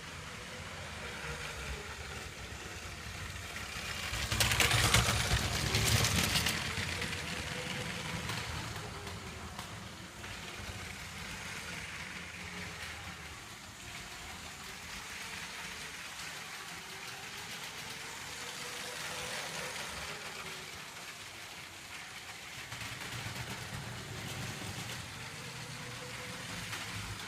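LEGO 60098 Heavy Haul Train running on plastic track: the electric train motor whirring and the wheels rattling along the rails, louder for about two seconds some four seconds in.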